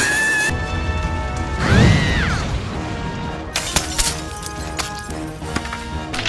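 Cartoon soundtrack: background music with comic sound effects, including a squeaky glide that rises and falls about two seconds in and a few sharp knocks a little later.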